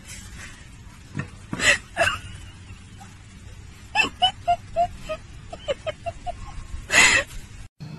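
A person laughing in runs of quick ha-ha pulses, broken by a few loud breathy outbursts; the sound cuts off suddenly just before the end.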